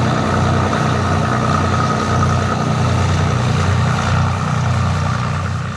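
Cessna T303 Crusader's twin turbocharged piston engines running at taxi power: a steady low throb with a slow pulsing beat and a thin whine above it, dropping off near the end.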